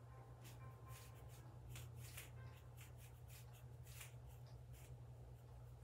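Near silence: room tone with a steady low hum and faint, scattered soft rustles.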